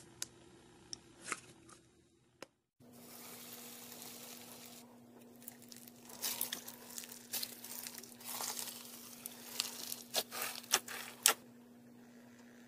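Hands squeezing and pressing bead-filled slime: a few sharp clicks at first, then a dense run of crackling, crunching snaps between about six and eleven seconds in, with a faint steady hum underneath.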